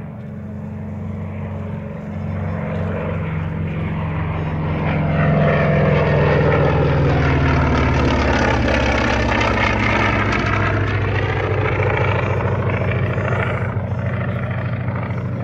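Single-engine World War II propeller warbird flying past overhead, its piston engine droning steadily. The engine grows louder over the first few seconds, is loudest through the middle, and eases off toward the end.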